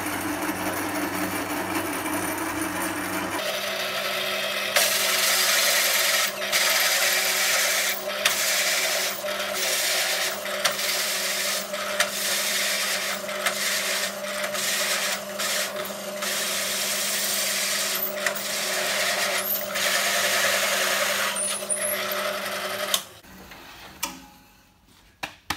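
Pedestal drill press running with an 86 mm hole saw cutting through two stacked sheets of plywood, a steady motor hum under the loud rasp of the cut. The cutting starts about five seconds in and breaks off briefly every second or two. Near the end the sound stops suddenly.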